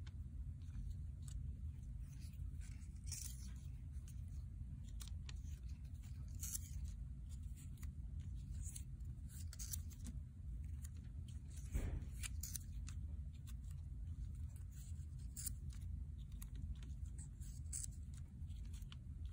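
Faint rustling and crackling of small paper squares being handled and pressed onto a sheet of paper, over a steady low hum, with one sharper tap about twelve seconds in.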